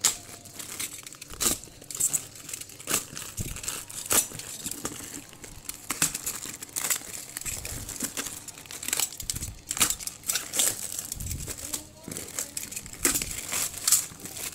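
Plastic parcel wrapping crinkling and tearing as it is cut with a utility knife and pulled apart by hand, in irregular sharp crackles.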